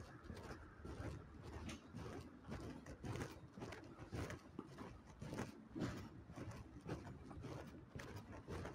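Faint footsteps of a person walking on pavement, about two steps a second, with low rumbling handling noise from the phone.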